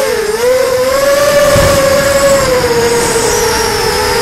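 Brushless motors and propellers of an EMAX Storm racing quadcopter with 2204 motors on a 4S battery, heard through its onboard camera: a loud steady whine that dips in pitch briefly just after the start, then sags a little in the second half as the throttle eases.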